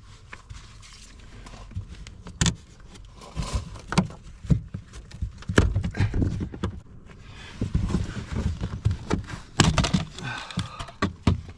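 Irregular knocks, clicks and rustling from hands working around a car's interior, reaching in beside the seat and centre tunnel. A few sharper knocks stand out, the loudest around two and a half, six and ten seconds in.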